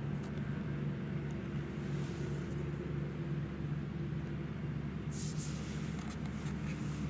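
A steady low engine hum that does not rise or fall, with a short hiss about five seconds in.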